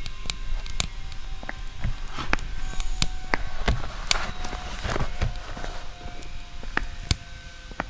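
Foley footsteps of hard shoes on a hard floor, roughly two steps a second, with a small fire crackling, over a steady low rumble.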